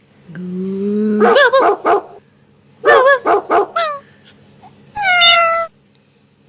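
Dog barking and yipping in two quick runs of short barks, then one longer drawn-out bark or whine about five seconds in.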